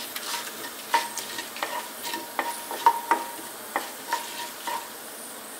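Whole spices (cumin and black mustard seeds, green cardamom, cinnamon stick) sizzling in hot sunflower oil in a nonstick pan while being stirred with a wooden spoon. Irregular sharp clicks and light knocks run through the frying hiss.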